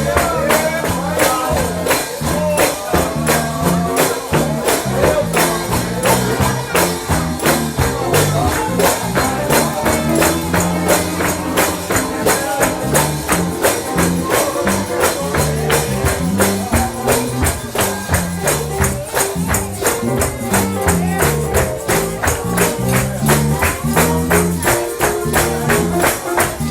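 Upbeat gospel music driven by a tambourine struck on a steady beat over a moving bass line, with singing voices at times.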